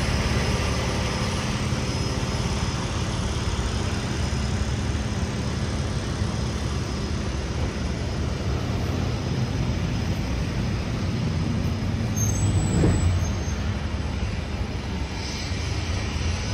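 Steady city street traffic: vehicle engines running and tyres on the road, with one vehicle passing louder about thirteen seconds in.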